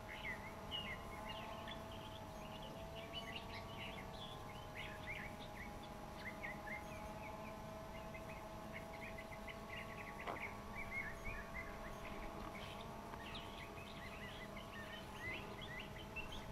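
Many small birds chirping and twittering in quick, overlapping calls, over a steady hum of several held pitches.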